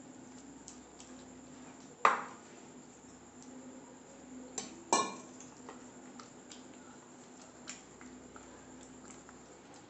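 Stainless-steel vessels clinking against each other and the counter while gram-flour batter is mixed by hand and water is poured in: two sharp metallic knocks about two and five seconds in, with small clicks between.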